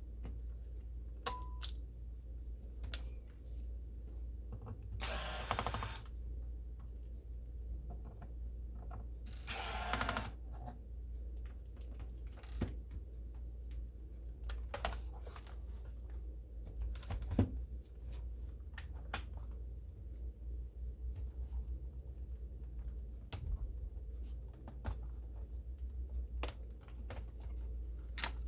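Scattered clicks, taps and two short scrapes of hands working on a Lenovo ThinkPad T510 laptop's plastic case and parts, over a steady low hum.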